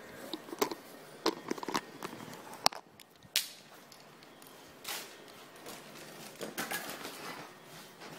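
Handling noise of a recording phone or camera being picked up and moved: a run of irregular clicks, bumps and rubbing against the microphone.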